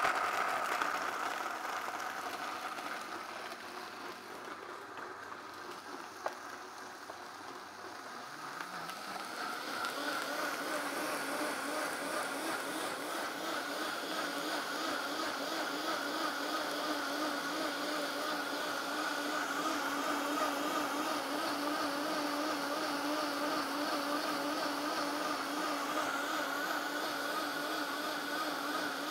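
Vitamix A3500 blender running its smoothie program on ice and citrus. It runs at a lower speed for the first several seconds, then the motor pitch climbs about eight seconds in and holds steady and louder at high speed.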